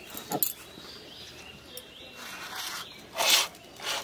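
A person eating rice and fish curry by hand off a steel plate: short, wet mouth and hand noises from mixing and eating. The loudest is a brief hissing burst about three seconds in.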